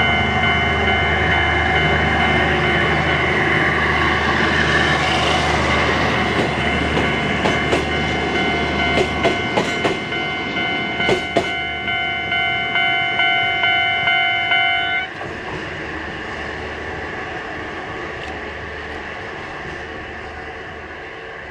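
A rail maintenance motor car hauling hopper wagons passes over a level crossing. First comes a heavy engine rumble, then the wheels clatter rhythmically over the rail joints with a few sharp metallic clicks. A steady ringing warning tone sounds over it and cuts off suddenly about fifteen seconds in, leaving a fading rumble as the train moves away.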